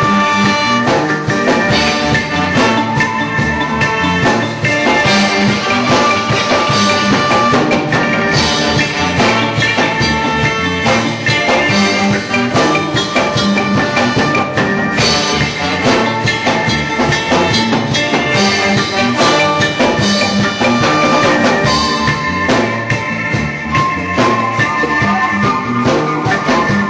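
Reggae band playing live with drum kit and other instruments, a steady beat with held notes over it.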